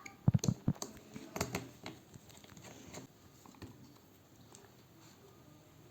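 Small clicks and knocks of tools and parts being handled during an iPad repair, as the screws holding the LCD are taken out. The loudest knocks come in a quick cluster about half a second in, followed by scattered lighter ticks that fade to faint handling.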